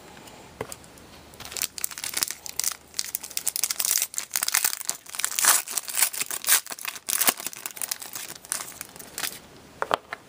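Foil trading-card pack being torn open and crinkled by hand: a dense run of crackling from about a second and a half in until shortly before the end.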